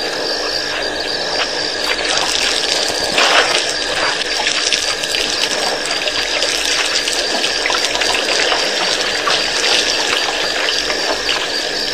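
Elephants drinking at a waterhole: a steady gushing and splashing of water poured from their trunks. A high chirp repeats about every two-thirds of a second over it.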